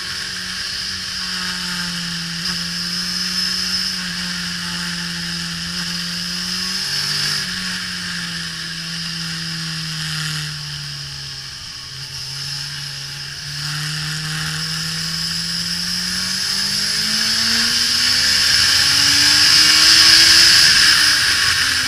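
Suzuki GSX-R1000 K5's inline-four engine at speed on track. The revs ease down through the first half with a couple of steps in pitch, then build steadily and are loudest near the end.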